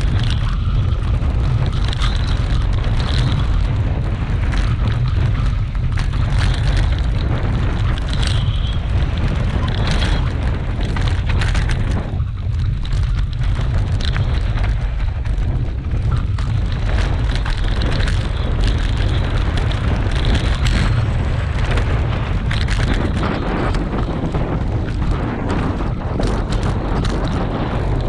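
Wind buffeting the microphone of a mountain bike's action camera as it descends a rocky dirt trail at speed, a heavy steady rumble. Over it, the bike rattles and clatters, with its knobby tyres crunching over loose stones in many short knocks.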